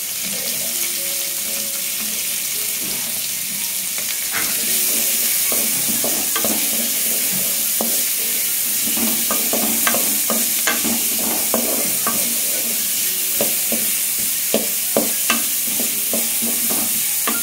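Sliced onions, beans and diced carrots sizzling in hot oil in a metal kadai, a steady hiss. From a few seconds in, a wooden spatula stirring them scrapes and taps against the pan again and again, more often in the second half.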